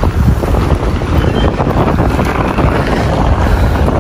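Strong wind buffeting the microphone: a steady loud rumble with a hiss over it, the gusty wind that comes ahead of a rainstorm.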